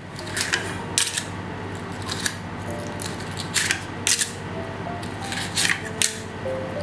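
Paper cupcake liners crinkling in short, crisp rustles, about seven at irregular intervals, as they are pulled from a stack and set into a metal muffin tin.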